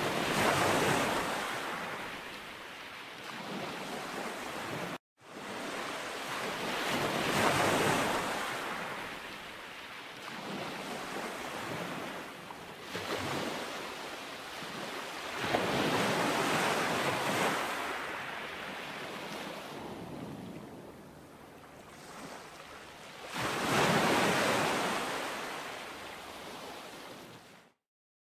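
Ocean surf breaking on a sandy beach: waves wash in and draw back in slow swells about every eight seconds. The sound drops out for a moment about five seconds in and cuts off near the end.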